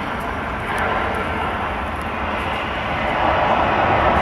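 Engines of a twin-engine jet airliner on its runway roll, a steady rushing engine noise that grows louder about three seconds in.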